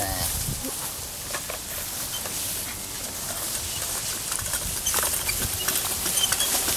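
Hereford cattle walking through tall goldenrod and brush: leaves and stems rustling, with scattered knocks of hooves on the ground. It gets louder about five seconds in as the animals pass close.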